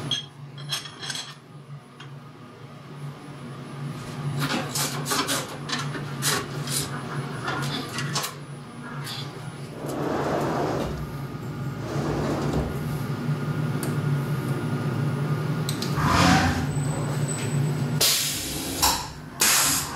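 Setting up a CNC mill: sharp metallic knocks and clicks as aluminium stock is placed and clamped in the machine vice, over a steady low hum, followed by several louder rushing, sliding noises.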